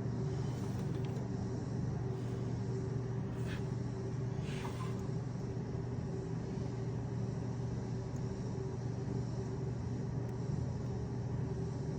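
A steady low mechanical hum, with two brief scraping clicks about three and a half seconds in and again about a second later.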